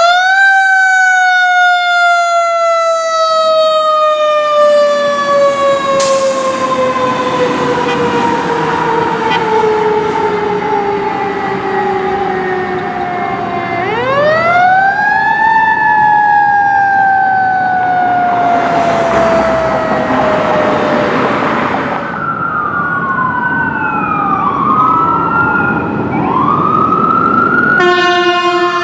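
Fire engine siren on a 2017 Pierce Velocity pumper, winding up fast and then falling slowly in pitch for about fourteen seconds, then winding up and falling again. After that come faster rising-and-falling siren wails, and near the end a steady air horn blast.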